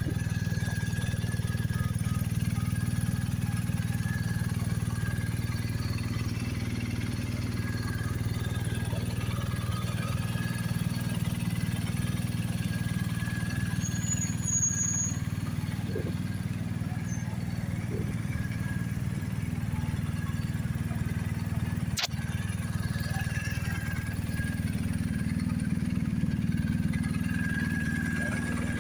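BMW R 1250 GS Adventure's boxer twin engine idling steadily.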